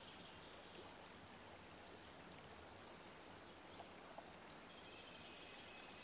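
Near silence: faint steady outdoor ambience, like a distant stream. A few faint high chirps sound at the start and again near the end.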